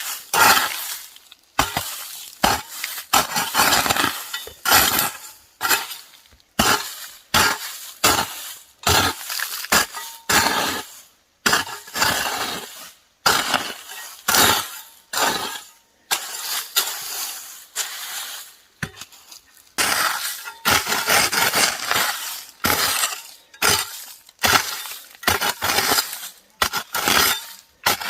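Hand hoe (enxada) chopping and scraping weeds out of soil in a steady rhythm of strikes, a little more than one a second, each a sharp bite followed by a short gritty scrape.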